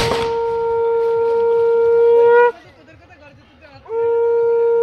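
Conch shell (shankha) blown in long steady blasts for the ritual filling of the puja pot. The first note is held until about two and a half seconds in and rises slightly as it breaks off. After a short pause a second blast starts near the end.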